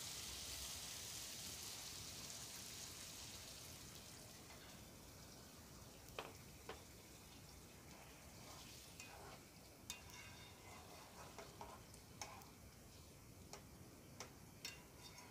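Faint sizzling from a pan of beef liver curry just after hot water was added, dying away over the first few seconds. Then a handful of light clicks from a wooden spatula against the pan as the curry is stirred.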